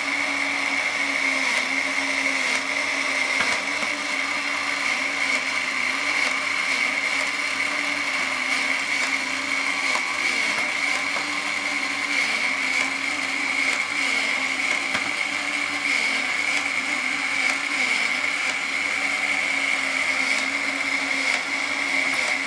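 Small electric motor and gear train of an antique animated toy running steadily: an even whir with a constant high-pitched whine.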